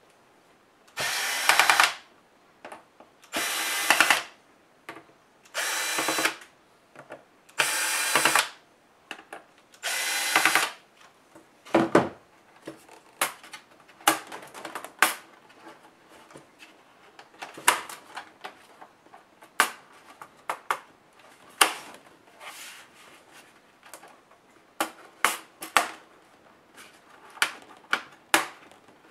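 Cordless electric screwdriver running in five short bursts of about a second each, backing screws out of a laptop's plastic bottom case. Then come scattered sharp plastic clicks and taps as the case is handled.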